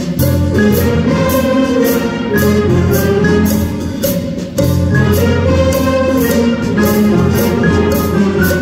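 A school band playing, with marimbas and upright bass among the instruments, over a steady ticking beat.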